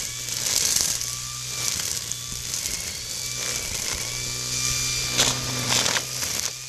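GreenWorks corded electric grass trimmer running at speed, its head fitted with nylon zip ties instead of string, whirring steadily as the ties cut through long grass. A few short louder cracks come about five seconds in.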